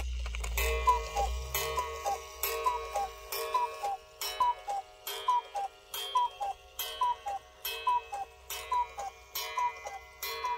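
Engstler one-day mechanical cuckoo clock calling the hour: its bellows pipes sound the two-note "cuckoo", a higher note then a lower one, about once a second and about a dozen times in a row. Each call begins with a sharp click from the mechanism.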